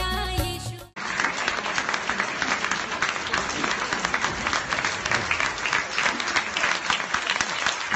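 A song with singing cuts off abruptly about a second in, and a theatre audience applauds steadily in dense, continuous clapping.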